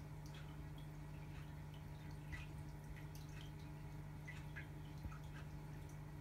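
Aquarium filter running: a steady low hum with faint, irregular drips and trickles of water at the surface.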